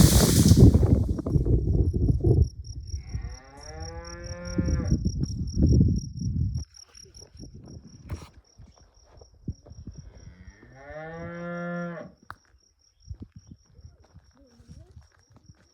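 A cow mooing twice, each call a long, falling-then-level moo of about a second and a half, several seconds apart. An insect keeps up a fast, high pulsing chirp throughout, and a loud low rumble fills the first couple of seconds.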